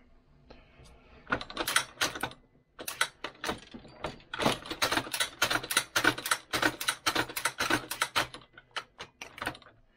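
Quick, irregular clicking and clatter of small hard parts being handled at a Hornady 366 shotshell reloading press, starting about a second in and running in uneven clusters until shortly before the end.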